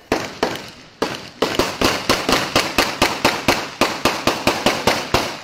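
Gunfire at close range: two or three separate shots, then a fast, steady string of shots at about five a second, some two dozen in all.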